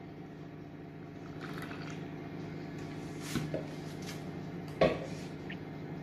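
Hand whisk stirring milk into batter in a glass bowl: soft squishing, with a small clink about three seconds in and a louder knock against the bowl just before five seconds. A steady low hum runs underneath.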